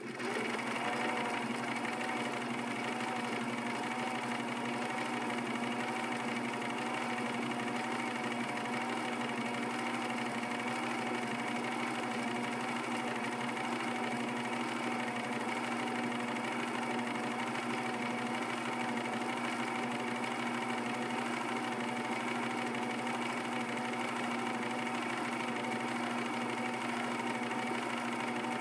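Pfaff 1222e electronic sewing machine running flat out with the foot pedal fully depressed: a steady motor hum that wanes at regular intervals, about every 3 seconds. The waning persists with the machine freshly oiled and cleaned.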